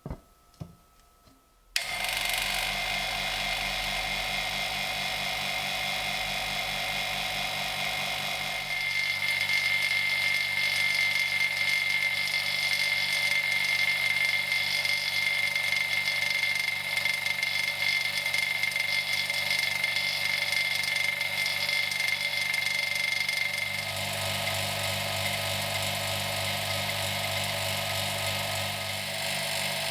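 A small electric motor starts about two seconds in and runs steadily with a whine, its tone shifting twice along the way.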